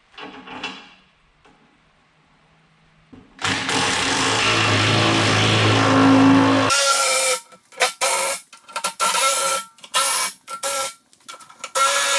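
A power tool running on the bolts of a skid-steer bucket's cutting edge: one steady run of about three seconds, then a string of short trigger bursts.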